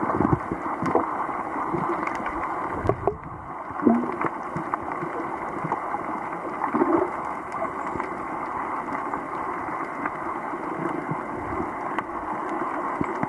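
Underwater sound picked up by a snorkeler's camera: a steady muffled rush of moving water with scattered faint clicks and a couple of short low gurgles, about four and seven seconds in.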